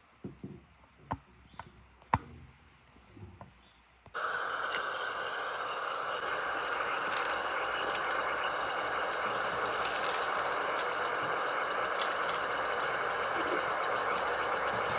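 A few light clicks and knocks, then about four seconds in a steady machine-like whirring noise starts abruptly and runs on evenly.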